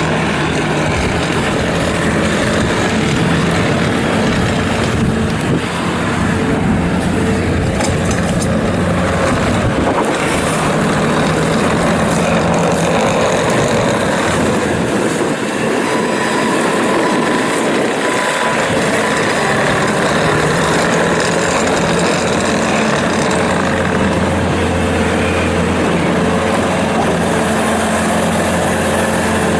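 2017 Bobcat T650 track loader's diesel engine running continuously. Its note changes between about ten and eighteen seconds in, as the revs or load shift.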